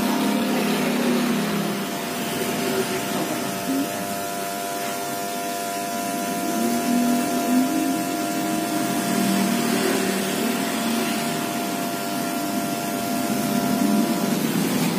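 Electric hair clippers running with a steady motor hum and whine while cutting hair at the side of the head; the hum stops shortly before the end.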